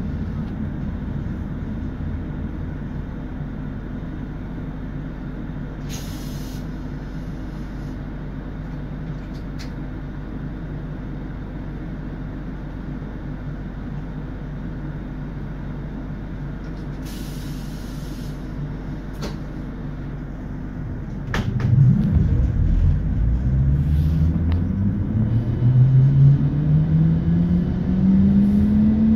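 ABB UBp electric train standing with a steady low hum, broken by two short hisses of compressed air about six and seventeen seconds in. About twenty-one seconds in the thyristor-controlled traction motors start up with a whine that climbs in pitch as the train pulls away.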